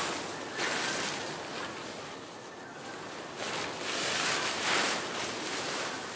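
Hammock and bedding fabric rustling and swishing as it is pulled and arranged, in several swells, loudest in the second half.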